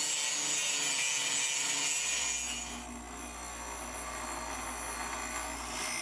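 Angle grinder grinding down welds on steel, a steady grind with a high whine. About three seconds in it falls away to a quieter, lower steady hum.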